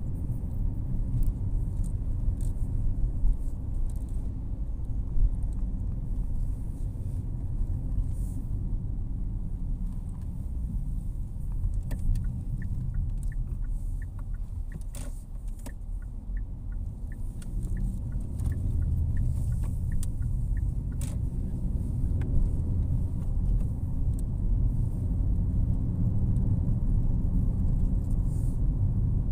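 Low engine and road rumble inside a car's cabin while driving, easing briefly in the middle. Over that stretch, for about eight seconds, an even run of soft ticks is heard, typical of the turn indicator's relay.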